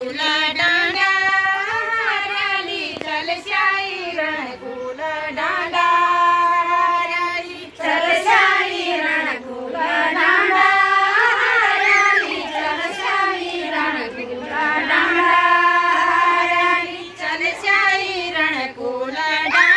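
A group of women singing a Garhwali chanchari folk song with voices alone, in repeated phrases with long held notes and short breaks between them.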